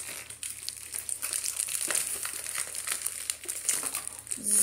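Thin plastic crinkling and rustling with small irregular clicks and taps, from a trading card being slipped into a plastic card sleeve.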